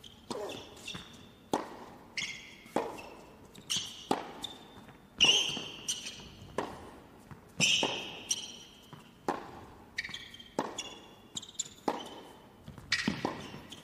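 Tennis rally on an indoor hard court: a run of sharp racquet strikes and ball bounces about once or twice a second, with short high-pitched squeaks of tennis shoes on the court between shots.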